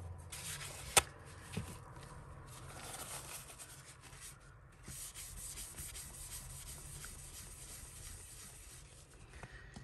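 Steady rubbing and scraping by hand against a hard surface, with a single sharp click about a second in and a brief pause about halfway through.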